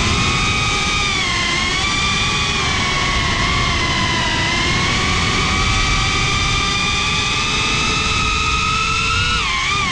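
FPV quadcopter's brushless motors and propellers whining, heard from the on-board camera, with a low rushing noise underneath. The pitch sags a little midway, climbs slowly, then dips sharply near the end as the throttle changes.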